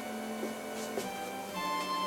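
Background music of sustained notes, with a couple of faint clicks a little under a second in.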